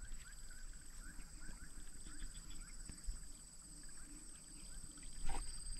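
Faint open-air ambience: a steady high-pitched whine with a run of short rising chirps from a small animal, about three a second, fading after about three seconds. A brief soft sound comes near the end.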